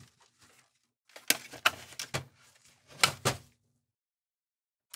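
Knocks and clatter of a partly disassembled PS4 Pro's metal chassis and circuit board being flipped over and set down on a workbench. A cluster of sharp knocks comes over about two seconds, then a single click near the end.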